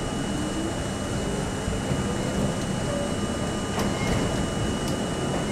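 New York City Subway C train pulling out of a station into the tunnel, heard from inside the car: a steady rumble of wheels on rail with a motor whine that rises in pitch as it gathers speed, and two short clicks in the second half.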